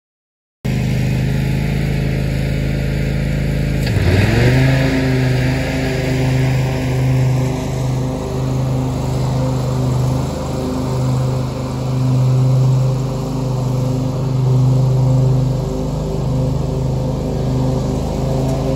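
Kawasaki FR691V V-twin engine of a Toro Titan HD zero-turn mower running steadily while mowing as the mower drives past and away, with a brief dip in pitch about four seconds in.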